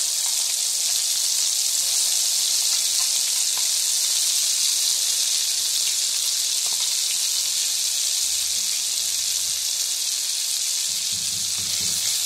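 Ground masala paste frying in hot oil in a kadhai, a steady loud sizzle. This is the stage where the masala is fried in the oil until the oil separates.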